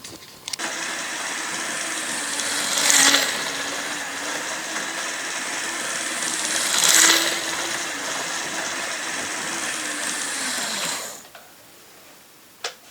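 Hornby OO gauge model locomotive running on its track on a test run after cleaning and servicing: a steady electric motor whine with wheel and rail noise. It swells louder twice and stops about eleven seconds in, followed by a single click.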